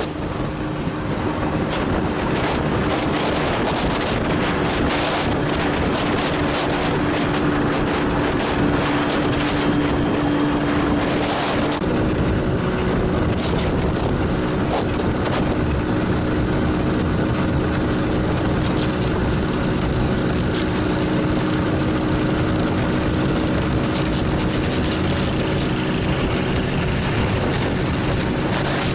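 Motorcycle engine running steadily at cruising speed, a constant drone that holds its pitch throughout.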